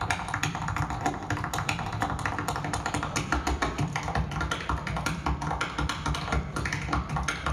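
Percussive stage dancing: the dancers' shoes strike out fast, tightly rhythmic taps on the stage floor, a dense run of sharp clicks that keeps going without a break.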